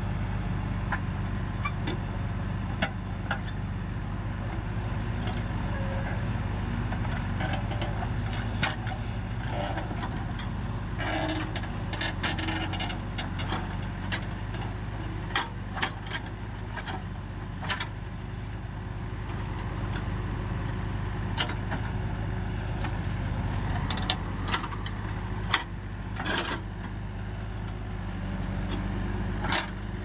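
Diesel engines of JCB 3DX backhoe loaders running steadily while digging, with scattered sharp clanks and knocks from the backhoe arm and bucket.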